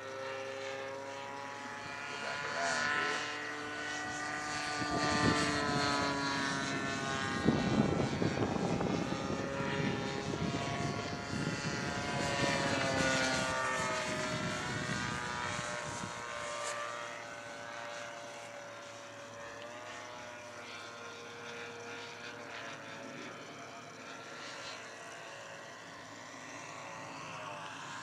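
Engine and propeller of a radio-controlled Ultimate aerobatic model plane flying overhead, its pitch rising and falling with passes and throttle changes. It is loudest in the middle, where a low rumble joins it for several seconds.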